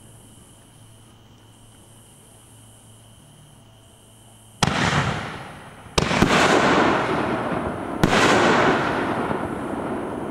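Aerial fireworks bursting in the sky: four sharp bangs starting about four and a half seconds in, two of them a fraction of a second apart around six seconds, each trailing off over a second or two.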